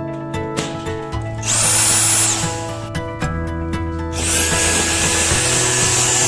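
Handheld electric vacuum suction tool for LED display modules running twice, a high-pitched whine over a hiss, first for about a second and then, from about four seconds in, for about two seconds, as it grips a module's face to pull it out of the cabinet. Background music plays underneath.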